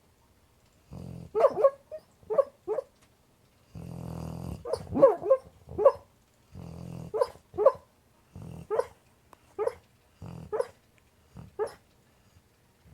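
American pit bull terrier asleep and dreaming: snoring breaths, each followed by one or two short barks and yips, repeating in bouts about a second or two apart.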